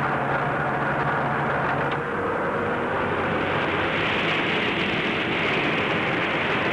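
Heavy vehicle engines running steadily under a constant hiss; the engine hum changes about two seconds in.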